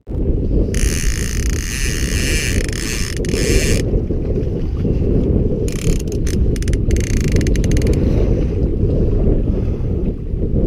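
Wind buffeting the microphone on a small open boat at sea, with a fishing reel's ratchet clicking in a fast run from about a second in, then a shorter burst of separate clicks around six seconds in.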